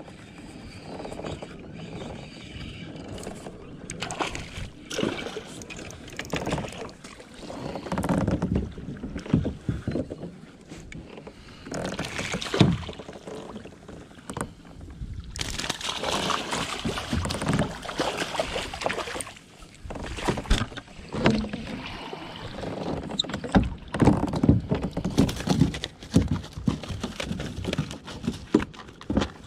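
Water splashing and sloshing around a fishing kayak in irregular bursts, some louder than others.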